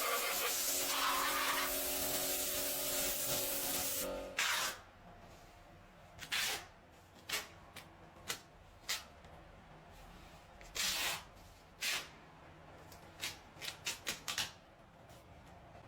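A steady spraying hiss, like a spray gun or air nozzle, that cuts off about four seconds in, followed by about a dozen short spray or air blasts with pauses between them.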